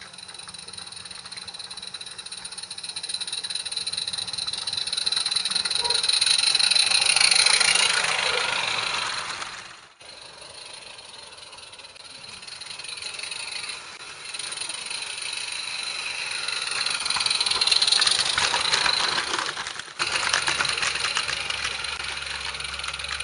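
Small live-steam 16 mm scale garden-railway locomotive and its train running past, growing louder and then fading, twice, with a fast rattle of wheels on the track as it passes close.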